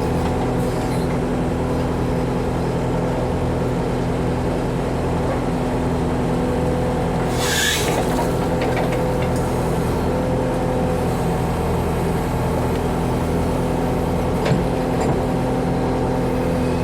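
Backhoe's diesel engine running steadily while it works, with a brief hiss about halfway through and a single knock near the end.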